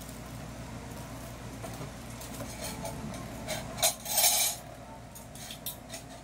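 Light clinks and one short clatter of metal kitchenware about four seconds in, over a steady low hum.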